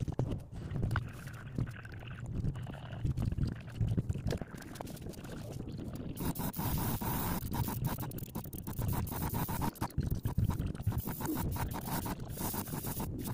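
Airbrush spraying in short, intermittent hisses, mixed with scraping, rustling and clicking handling noise and a low, uneven rumble.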